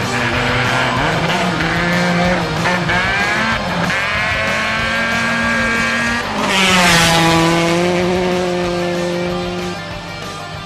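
Rally car engine revving hard, its pitch climbing, then the car passing close by about six and a half seconds in with a burst of tyre and gravel noise. The engine note drops as it pulls away.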